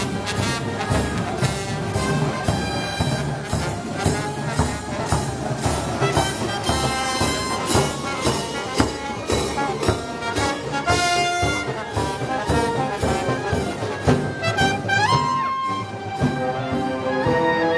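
Festival band music: brass (trumpets and trombones) playing over a steady, evenly repeating drum beat, with a brass note sliding up about three-quarters of the way through. Typical of the Moros y Cristianos band music the video is about.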